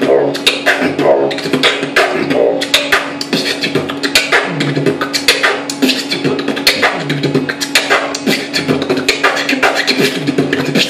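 Solo vocal beatboxing: a fast, continuous run of mouth-made drum sounds (kicks, snares and hi-hat clicks) over a steady hum.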